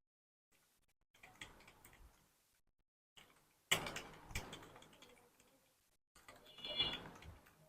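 Faint computer keyboard key clicks in short scattered clusters during fast typing.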